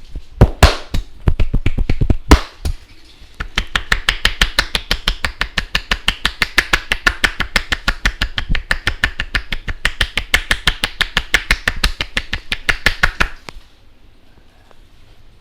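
Percussive Indian head massage: a barber's hands slapping and chopping on the head in a fast, even rhythm. It begins with a few louder, irregular slaps and stops suddenly near the end.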